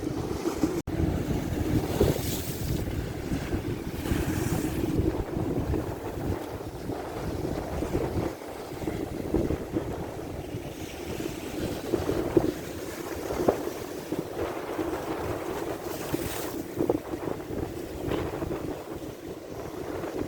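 Ocean waves washing in, with wind buffeting the microphone as a low rumble. A few louder hissing washes of surf come through, one at about two seconds, one near four and a half and one late on. The sound drops out for a split second about a second in.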